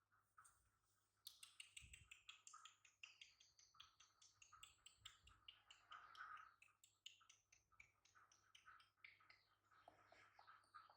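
Near silence with faint, rapid clicking and rustling, starting about a second in.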